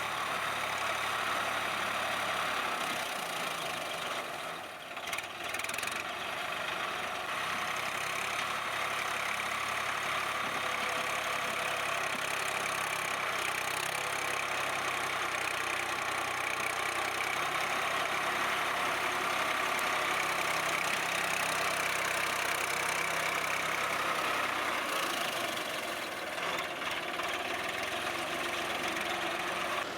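Swaraj 960 FE tractor's diesel engine running steadily, with a brief dip in level about five seconds in.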